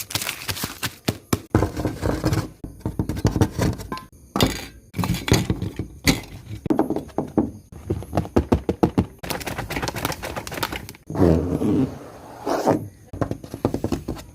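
A rapid, irregular series of knocks and thuds, with a louder, longer sound about eleven seconds in.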